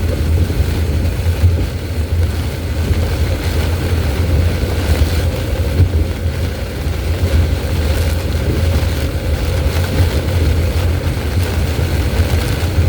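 Steady low rumble of a car driving at speed, heard inside the cabin, with wind and heavy rain buffeting the car.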